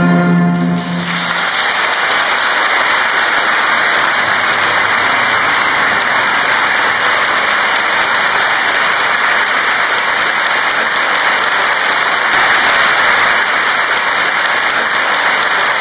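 An orchestra's final held chord cuts off about a second in, and the audience breaks into loud applause that carries on steadily.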